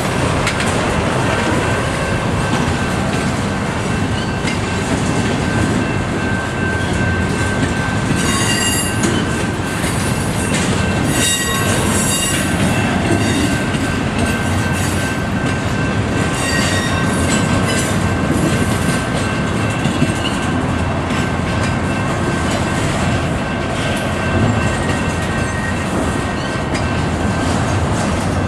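A CSX double-stack container train's well cars rolling steadily past at close range, a loud continuous rumble of wheels on rail. High-pitched wheel screeching flares up several times about a third of the way in and again a little past the middle.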